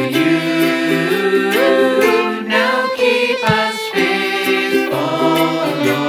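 Background music: a Christian worship song sung by several voices in harmony.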